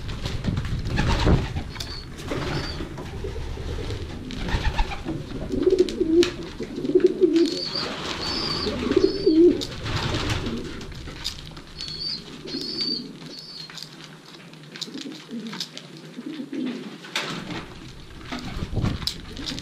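Racing pigeons cooing: low, wavering coos come in bouts through the middle. There are scattered sharp clicks and taps, and three short groups of high chirping calls.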